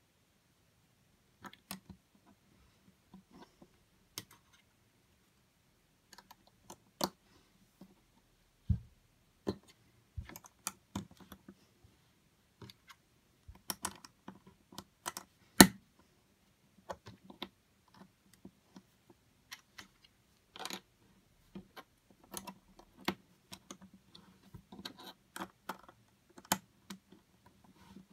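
Lego plastic bricks clicking and snapping as they are handled and pressed together by hand: sparse, irregular clicks, with one sharper snap about halfway through and a few duller knocks.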